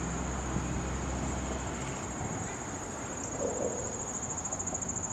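Insects trilling steadily at a high pitch over a steady rushing background. A low hum stops about two seconds in.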